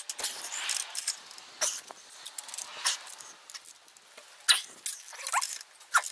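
Metal clicks, knocks and scraping from a spanner working a centre-stand mounting bolt tight under a motorcycle, irregular and close to the microphone, with a short rising squeak about five seconds in.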